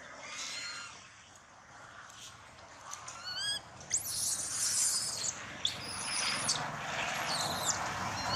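Baby macaque giving distress calls: a quick run of rising high squeaks about three seconds in, then several harsh, shrill screams through the second half.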